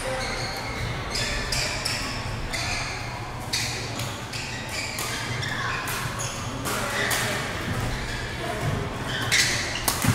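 Badminton doubles rally in a large, echoing sports hall: rackets strike the shuttlecock and sneakers squeak on the court floor, over background chatter and a steady low hum. The loudest hits come near the end, as a player jumps to smash.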